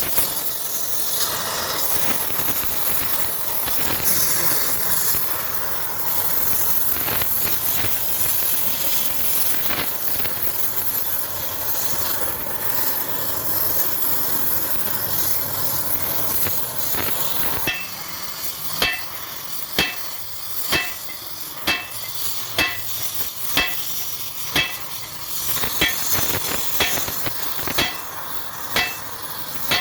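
A steady hiss, then, from a little past halfway, a run of sharp hammer blows on metal, about one a second, each with a short metallic ring.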